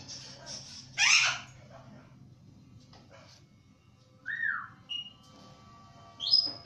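A few separate whistled notes: a rising-and-falling whistle, a brief higher note, then a sharp upward whistle near the end, after a short raspy burst about a second in.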